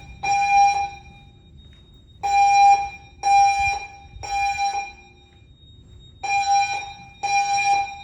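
Fire alarm evacuation tone from a Notifier Inspire N16x voice evacuation system, sounding the temporal-three pattern: groups of three loud pulses about a second apart, with a pause of about a second and a half between groups. It is the evacuation signal that sounds between the spoken evacuation messages.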